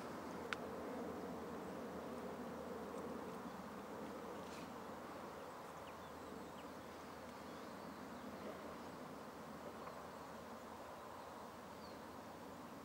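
A flying insect buzzing, loudest in the first few seconds and slowly fading, with a single sharp click about half a second in.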